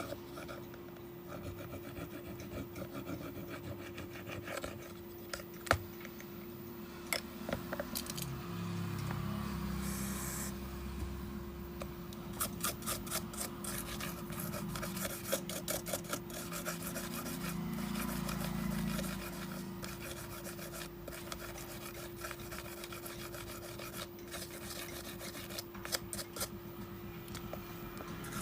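Rapid, repeated scraping and rubbing strokes of a hand tool working on a smartphone during a display repair, with scattered sharp clicks. A steady low hum runs underneath.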